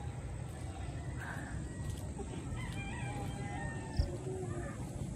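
A distant rooster crowing faintly over a steady low outdoor rumble, with a small click near the end.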